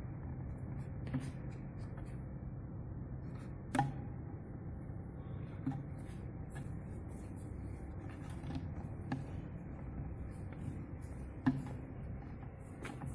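Automatic bottle labeling machine running: a steady low motor hum with scattered sharp clicks, the loudest about four seconds in and again near the end.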